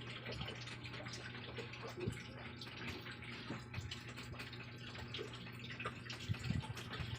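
Pot of soup simmering: watery bubbling with many small pops over a steady low hum.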